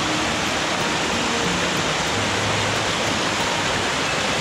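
Small mountain creek cascading over rocks, a steady loud rush of white water close by.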